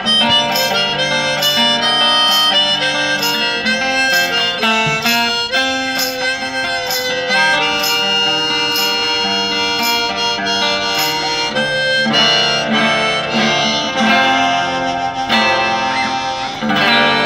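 Hohner Marine Band diatonic harmonica playing a solo melody of held, bending notes over a strummed Cort baritone acoustic guitar tuned down a whole step. The music swells near the end and then begins to fade.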